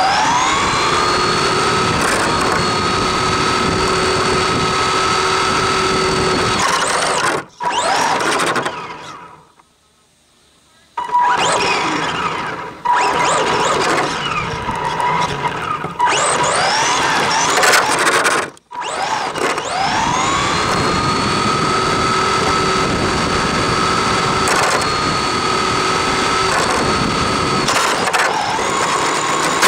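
RC car's motor, heard up close from on board, whining up in pitch as the car accelerates and then holding a steady high whine at speed, over tyre noise on asphalt. About a third of the way in it cuts off for a couple of seconds, then revs up and down several times before climbing again into another long steady run.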